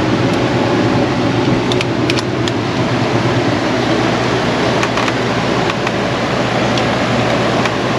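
Steady rushing hum like a running fan, with a few faint light clicks at about two, five and near eight seconds in.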